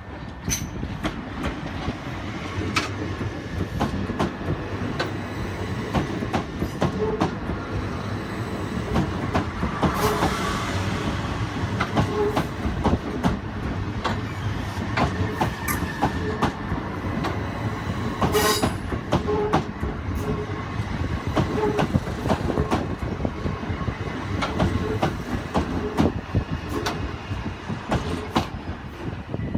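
Class 375 Electrostar electric multiple unit running slowly past at close range, its wheels clicking over the rail joints and pointwork.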